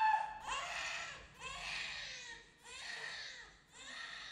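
A person crying on stage: a high voice wailing in four falling sobbing cries, about one a second.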